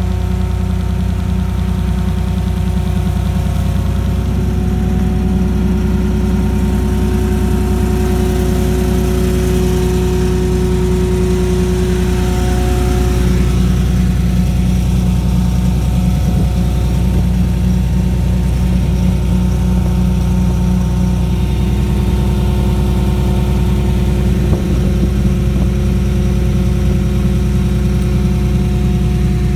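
The diesel engine of a 2000 John Deere 240 skid steer running steadily. Its pitch steps up or down a few times.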